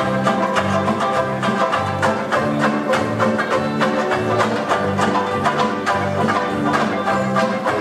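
Banjoleles strummed together in a brisk, even rhythm, over an accompaniment with a bass line that alternates between notes.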